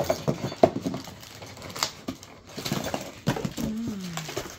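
Rummaging in a cardboard box: items knocking and rustling as cardboard and plastic toy packaging is shifted and pulled out, in irregular clicks and scrapes.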